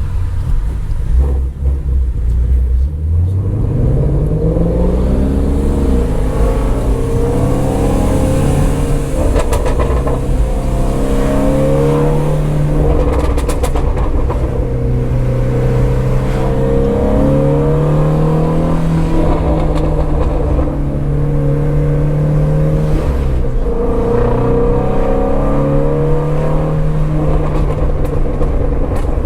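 2019 Ford Shelby GT350R's 5.2-litre flat-plane-crank V8 on the move. The engine note climbs a few seconds in as the car accelerates, then holds a steady drone at cruising revs, dipping and picking up again a few times, with a handful of short sharp cracks in the middle.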